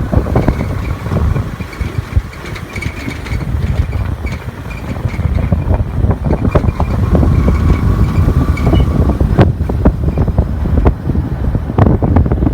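Heavy wind buffeting the microphone, a steady low rumble with gusty thumps and a faint steady whine underneath.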